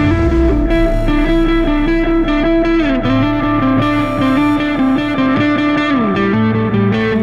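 Background rock music led by a distorted electric guitar playing a stepping melody over a steady bass, with the guitar sliding down in pitch about three seconds in and again near the end.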